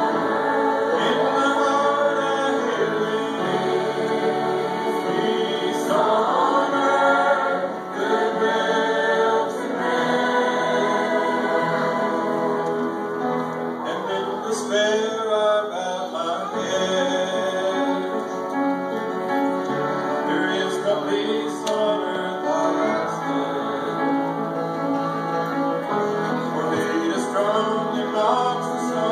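Mixed church choir of men's and women's voices singing a Christmas carol in parts, sustained chords moving from phrase to phrase.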